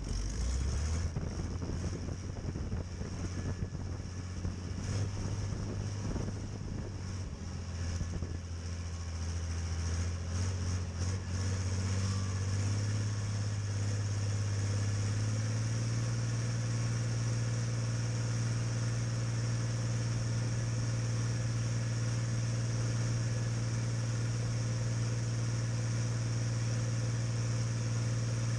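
Deutz-Fahr DX6.05 tractor's air-cooled six-cylinder diesel engine running, with clattering over the first dozen seconds. About halfway through the engine speed rises and then holds steady.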